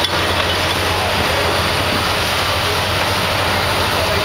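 A John Deere excavator runs steadily while its ALLU screening bucket works, with screened soil pouring out of the bucket onto a pile. The result is an even, unbroken mechanical noise over a constant low engine hum.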